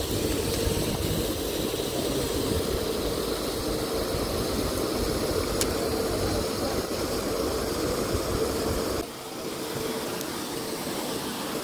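Pond paddlewheel aerator running: a steady motor hum with churning, splashing water, and one sharp click around the middle. About nine seconds in it drops suddenly to a quieter hiss.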